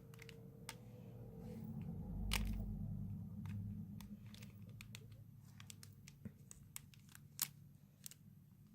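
Candy powder being poured from a cut plastic packet into a small scoop, with the packet crinkling and scattered light clicks and taps of plastic being handled; a low rustling swell about two seconds in and one sharper click near the end.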